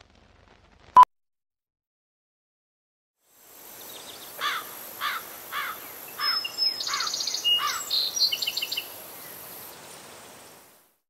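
A single short beep from a film countdown leader about a second in. After a pause, birds chirping over a steady outdoor hiss, a run of quick falling chirps and trills for about seven seconds, fading out near the end.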